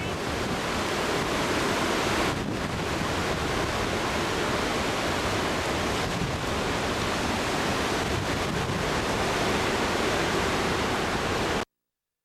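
Hurricane-force wind blowing hard, a steady rushing noise with wind buffeting the camcorder microphone. It cuts off suddenly near the end.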